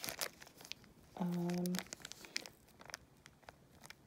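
Small plastic zip-lock bag of beads crinkling faintly as it is handled, with a short, steady hummed "mmm" from a woman's voice about a second in.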